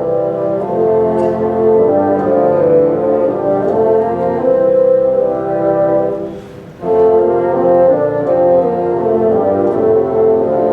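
Bassoon ensemble playing sustained chords in several parts, with a short break about two-thirds of the way through before the players come back in.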